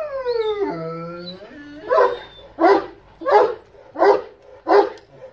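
Anatolian shepherd-type dog making a long whining cry that falls in pitch, then five barks in a steady rhythm, about one and a half a second.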